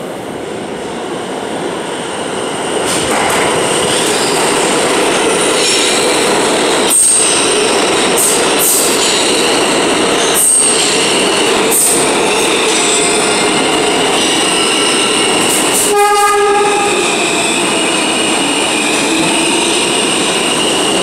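R160 subway train entering an underground station: steady rumble of wheels on rail, growing louder over the first few seconds, with high-pitched wheel squeal and several sharp clacks. A short horn blast sounds about three-quarters of the way through.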